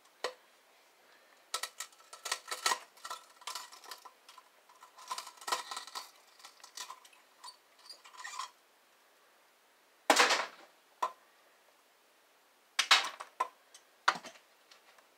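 Light metallic clinks and rattles of hand tools and small metal parts as a CRT monitor is taken apart, with two louder clatters about ten and thirteen seconds in.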